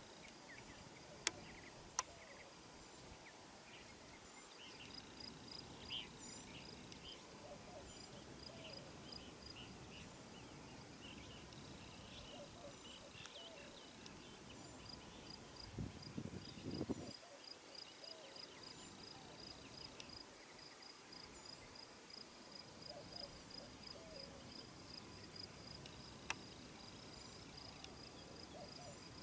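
Quiet outdoor ambience with an insect chirping in a steady, evenly spaced pulse and faint bird calls. Two sharp clicks come about a second in, and a brief rustle comes about halfway.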